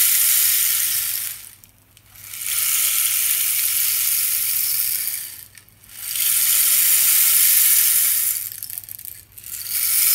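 Rain stick being tipped end over end: each turn sends its fill trickling down the tube as a steady hiss lasting about three seconds, with a brief break each time it is turned over, three breaks in all.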